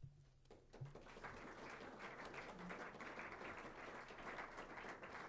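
Audience applauding, starting softly about half a second in and growing steadily louder.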